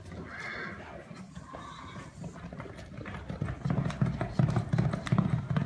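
Galloping horse's hooves pounding the dirt of a rodeo arena during a barrel race run. The beats grow louder over the last couple of seconds.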